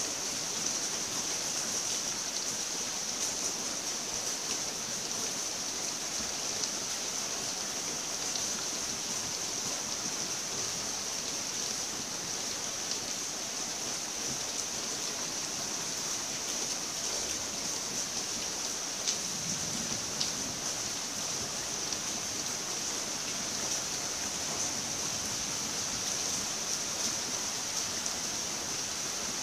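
Steady rain: an even, unbroken hiss with scattered faint ticks of drops.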